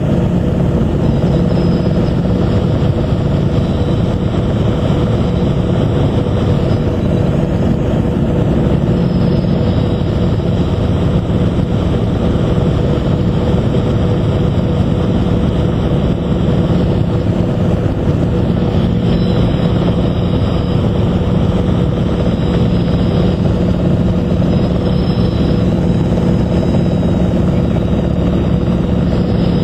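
Robinson R22 helicopter in flight, heard from inside the cabin: the engine and rotor drone steadily throughout.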